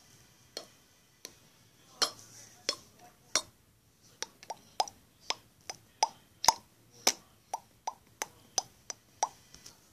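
Popcorn popping imitated by mouth: single sharp mouth pops, sparse at first, then coming two or three a second from about four seconds in.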